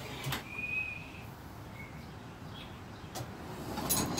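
Light clicks and knocks of hand tools being searched through for a wrench, with a short high chirp about half a second in and a fainter one near the middle.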